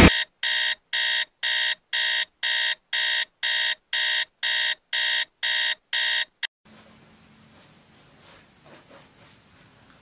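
Mobile phone alarm beeping, about two beeps a second, cut off about six and a half seconds in as it is switched off. Faint rustling of bedding follows.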